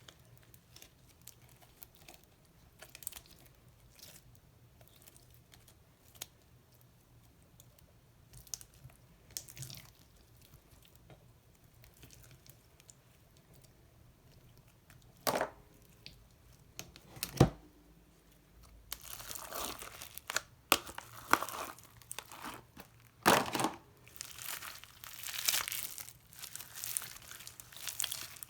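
Slime being mixed and worked: faint scattered crackles at first, two sharp pops about halfway through, then denser crackling with several loud pops over the last third.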